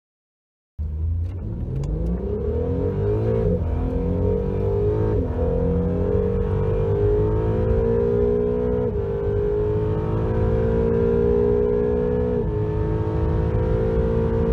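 Acura NSX's twin-turbo V6 heard from inside the cabin under hard acceleration, cutting in about a second in. The engine note climbs in pitch and drops at each upshift, several times, over a steady low road and wind rumble.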